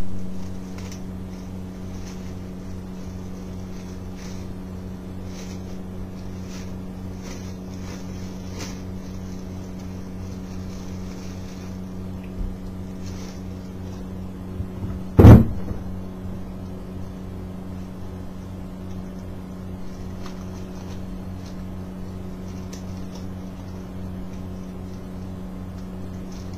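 Steady low hum with several even overtones, under faint rustling of a cloth and a plastic bag of polishing powder being handled. A single sharp knock about 15 seconds in is the loudest sound.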